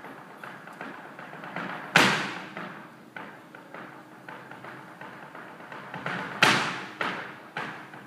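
A dancer's shoes stamping and tapping on a wooden stage in a fast rhythm, several taps a second. Two heavy stamps, about 2 s and 6.5 s in, stand out from the rest and ring briefly in the hall.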